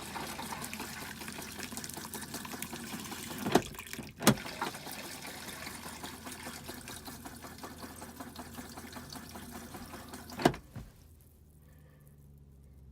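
Water rushing into the bowl of a newly installed Thetford RV toilet as it is flushed, fed by the RV's water pump. There are sharp clacks about three and a half and four seconds in, and another as the water cuts off, about two seconds before the end. The flush works as it should.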